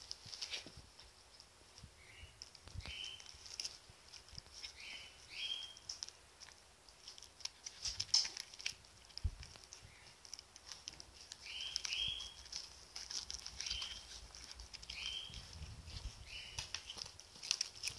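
Cat biting and chewing on a bread roll held in a hand: faint, irregular crunching and clicks. Short, high, rising squeaks come every few seconds, often in pairs.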